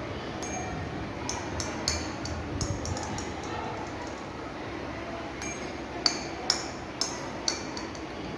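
Light metallic clinks and ticks of a tuning-fork demonstration: a small ball on a thread knocking against the prong of a struck tuning fork. Scattered soft ticks in the first few seconds, then four sharper clinks about half a second apart near the end.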